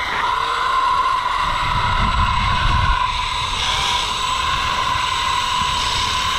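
Zip line trolley's pulleys running fast along the steel cable with a steady high whine, over wind rumbling on the microphone.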